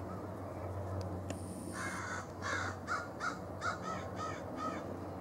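A bird giving a run of about eight short, harsh calls, starting a little under two seconds in and ending near the end.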